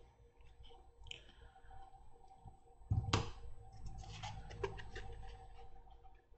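Faint handling noise of a small model aircraft kit and workbench tools: light clicks and rustles, with one soft knock about three seconds in.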